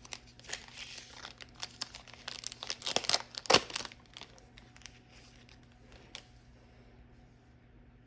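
Plastic foil trading-card pack wrapper crinkling and tearing in the hands, in a run of crackly rustles that peaks about three and a half seconds in, then fades to a few faint ticks.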